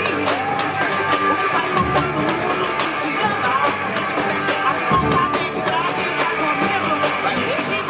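Background music: a song with singing, guitar and drums, with a steady beat.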